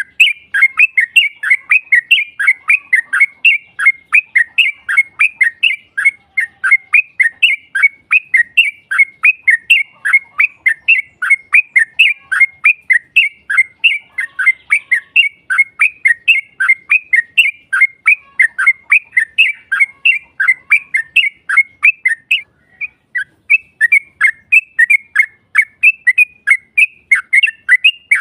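Yellow-vented bulbul (trucukan) singing a long, fast 'ropel' run of short, falling chattering notes, several a second, with a brief break about 22 seconds in.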